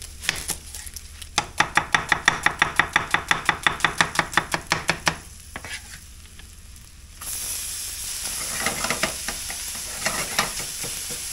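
A chef's knife chops half an onion on a plastic cutting board, a fast even run of knocks at about seven a second for nearly four seconds. About seven seconds in, the onion goes into a hot stainless sauté pan and starts sizzling, with a wooden spatula stirring and scraping in the pan.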